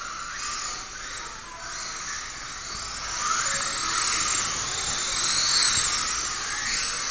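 Kyosho Mini-Z radio-controlled car running laps: a high whine from its small electric motor and gears, rising and falling with the throttle, over a steady hiss.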